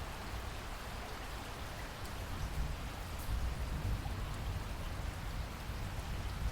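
Heavy rain falling steadily, with a low rumble underneath and scattered light drop ticks.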